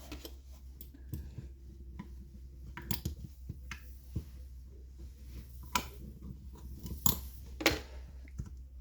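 Scattered light clicks and knocks of hand work on a motorcycle isolastic engine mount as its parts and hand tools are handled, with the sharpest knocks a little before six seconds in and twice around seven seconds in, over a steady low hum.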